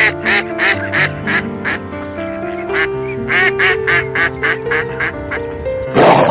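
A duck quacking in two quick runs of short quacks, about three a second, over background music. Near the end a loud, harsh noisy burst cuts in.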